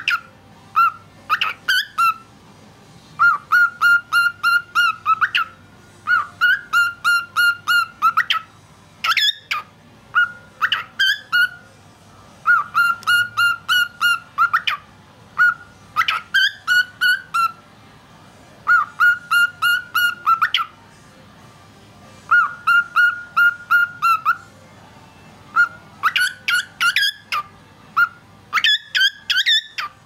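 Male cockatiel whistling a learned song: runs of quick repeated notes on one pitch, broken by short pauses, with a few higher swooping notes mixed in.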